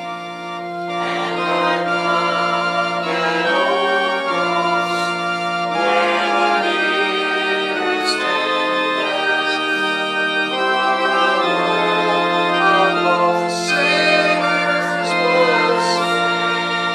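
A hymn played on an organ: sustained chords that change every second or two over a held bass note.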